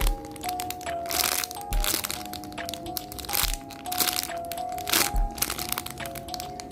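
Background music with a melody and a low beat about every second and a half, over irregular crinkling and crackling of plastic packaging being handled while a squishy toy is unboxed.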